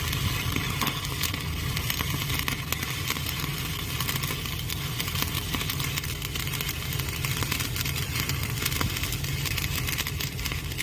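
Stick (arc) welding: the arc crackles and sizzles steadily as the electrode burns, over a low hum.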